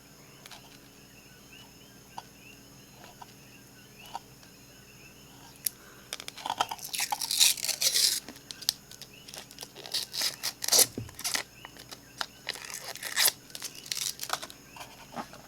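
Plastic packaging crinkling and tearing in irregular bursts as a nail-stamping plate is unwrapped by hand, starting about six seconds in after a quiet stretch.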